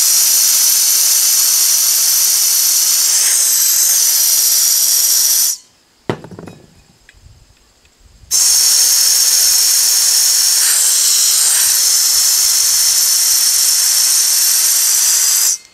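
Compressed-air blow gun hissing into the valve opening of an empty propane cylinder to purge residual propane gas. Two long, steady blasts, about five and seven seconds, one into each of two cylinders, with a short knock between them as the cylinders are swapped.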